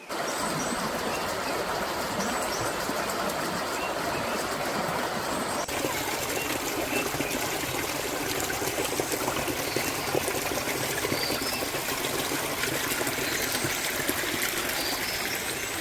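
Waterfall water rushing and splashing in a continuous steady noise, which changes abruptly about six seconds in.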